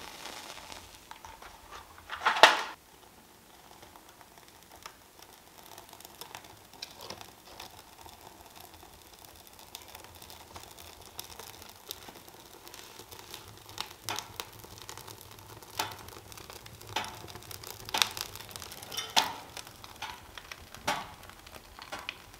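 A wood fire crackling and popping in a cast-iron wood stove as the kindling catches, the pops coming more often in the second half. A loud short rasp about two seconds in.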